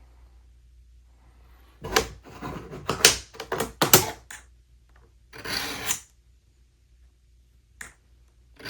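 Steel lathe cutter rubbed on a 400-grit diamond sharpening stone. A quick run of short scraping strokes starts about two seconds in, followed by one longer stroke a little later.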